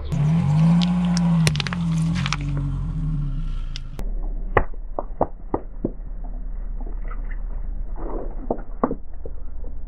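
A car tyre rolling over a plastic toy car, the plastic cracking and snapping over a low engine note that rises and falls. Then a tyre crushing a plastic slime container: a string of sharp plastic cracks and pops as it squashes.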